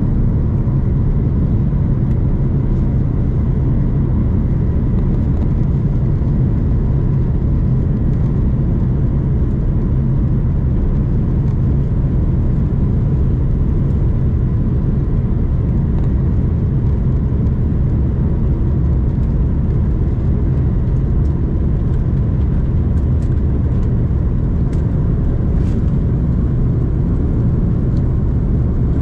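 Airbus A330-200 cabin noise heard from a window seat beside the engine while the jet taxis: a loud, steady low rumble of the turbofans with a faint, even whine above it.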